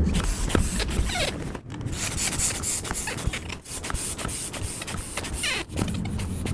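Small hand air pump being worked to inflate a vinyl inflatable tub's ring: a rapid run of airy pumping strokes with plastic rubbing, and a couple of brief squeaks.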